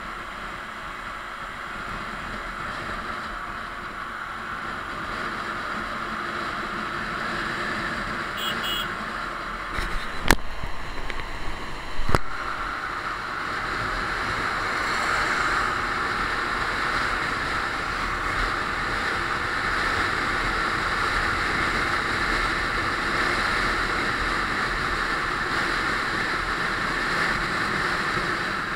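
Steady road and wind noise from a moving vehicle, slowly getting louder, with two sharp knocks about two seconds apart roughly a third of the way in.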